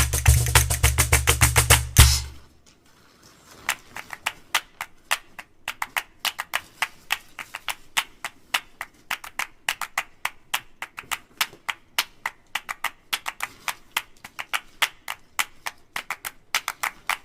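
Background music: a beat with a heavy bass drops out about two seconds in, leaving only fast, light tapping percussion at a lower level.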